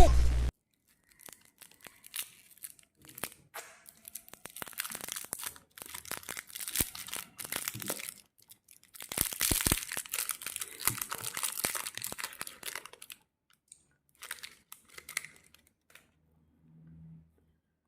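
Candy and chocolate wrappers being torn open and crinkled: irregular crackles and tearing, busiest a little past halfway, dying away a couple of seconds before the end.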